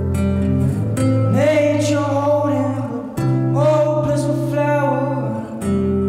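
Acoustic guitar playing, with a voice singing two long held notes that each slide up at the start, about a second and a half in and again just past the middle.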